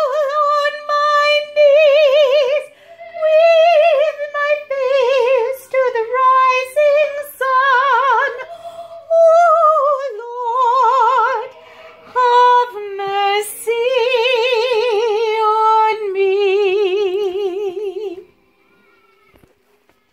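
A woman singing a spiritual unaccompanied, high in her range with a wide vibrato, in long phrases with short breaks. A few sharp clicks fall between phrases, and the singing stops about two seconds before the end.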